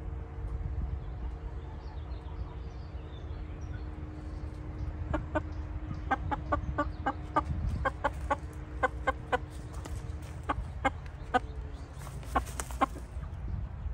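Shamo chicken clucking: a run of short, quick clucks starting about five seconds in, several a second at times, over a low background rumble.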